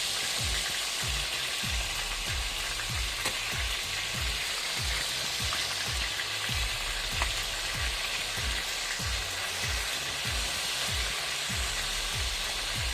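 Chicken thigh pieces frying in hot vegetable oil in a deep frying pan, with a steady sizzle.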